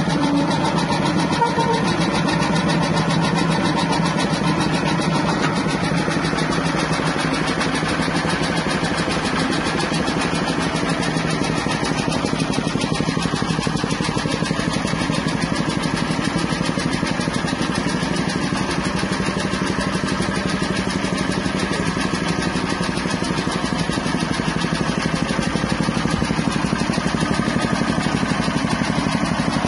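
Small single-cylinder petrol engine running steadily at a constant speed, driving a soybean dehulling and splitting machine.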